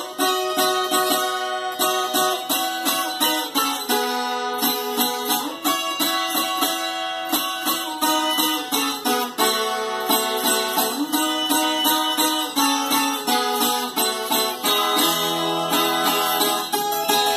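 Viola caipira, the Brazilian ten-string folk guitar, played as a continuous melody of quickly plucked notes.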